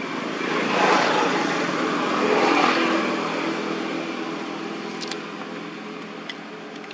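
A motor vehicle driving past, its engine and road noise swelling over the first three seconds and then fading away.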